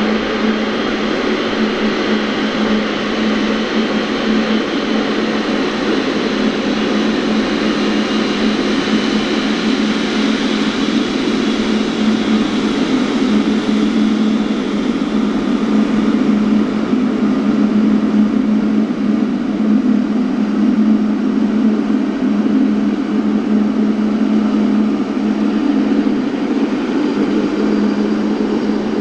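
Jet engines of a large aircraft running steadily, with a continuous low hum under an even rushing noise, growing slightly louder about halfway through.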